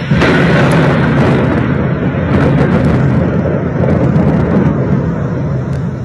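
A sudden loud blast of a distant explosion, then a long rolling rumble with a few sharper cracks, typical of a missile strike on a city.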